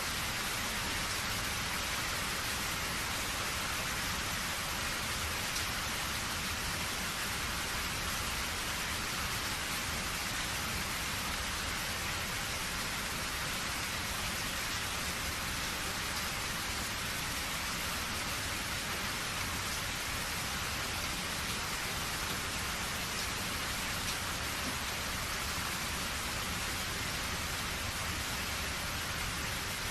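Steady rain falling, an even hiss of many drops with no pauses or distinct claps.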